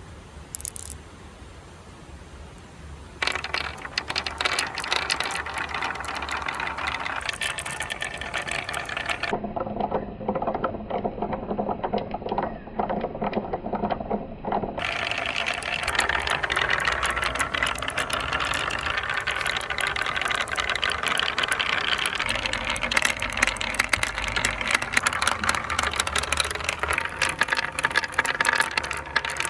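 Marbles rolling and clattering along a marble run track, a steady dense rattle of small clicks that starts about three seconds in and goes duller for several seconds in the middle.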